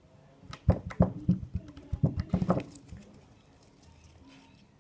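Slime being squeezed and worked in the hands: a quick run of sharp, wet clicks and pops for about two seconds, starting under a second in.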